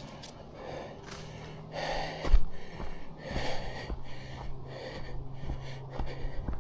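A person breathing hard, a run of quick, hissy breaths in and out, with one sharp thump a little past two seconds in.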